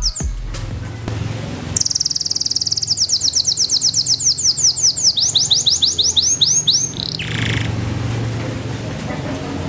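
Belgian Bossu canary singing a rapid trill of repeated high sweeping notes, which steps down in pitch about halfway through. The trill lasts about five seconds and then breaks off.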